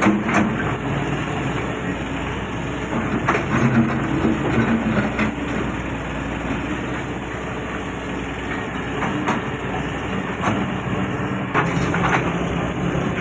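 Doosan excavator's diesel engine running steadily under working load, with several sharp knocks and cracks from the bucket and branches scattered throughout.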